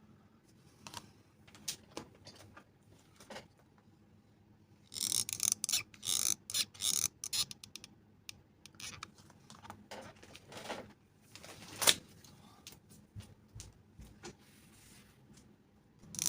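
Handling noise from hands working small tools and parts on a work surface: scattered clicks and taps, a burst of crinkly rustling around five to seven seconds in, and one sharp click near the end.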